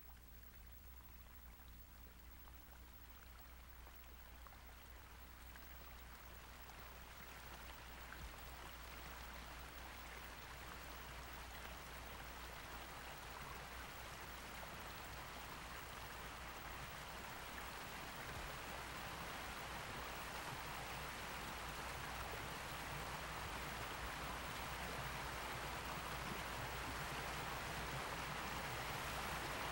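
A steady rushing noise, like running water or rain, that grows gradually louder throughout, over a faint low hum.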